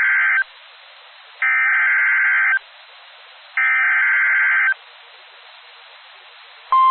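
Emergency Alert System SAME header for a severe thunderstorm warning: three bursts of digital data warble, each about a second long with about a second of faint hiss between them. Near the end the steady single-pitch attention tone of the alert begins.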